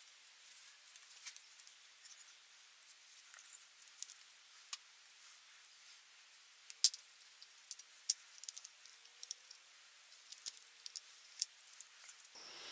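Small metal parts of a Bosch VA diesel injection pump clicking and tapping as the pump housing is handled and parts are fitted into it: scattered light clicks, with a few sharper ticks in the second half.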